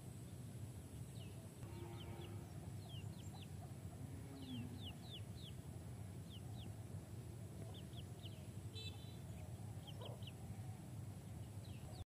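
Chickens foraging: short, high, downward-sliding peeps in quick groups of two to four, with a few faint low clucks, over a steady low rumble.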